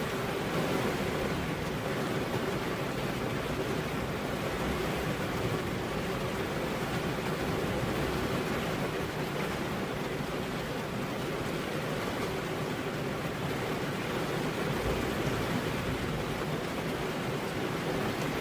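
Steady rain, heard as a continuous, even hiss with no separate drops or gusts standing out.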